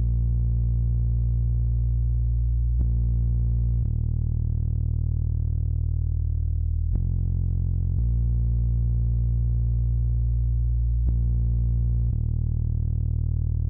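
Slow synthesizer music: sustained low chords over a deep bass, the chord changing every three to four seconds.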